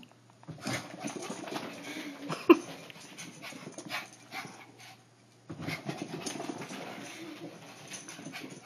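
Shih Tzu panting and vocalising in excited play, in two spells of a few seconds each with a short gap near the middle. One short, sharp bark comes about two and a half seconds in.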